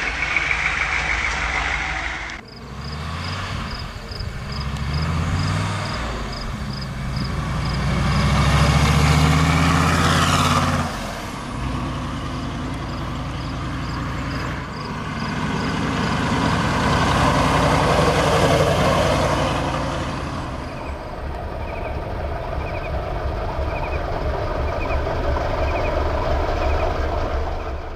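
International Scout II's GM 6.5 L turbo diesel engine driving by, first heard briefly from inside the cab. Its note climbs under acceleration, drops away, swells again, and then settles into a slow, low, even pulse near the end.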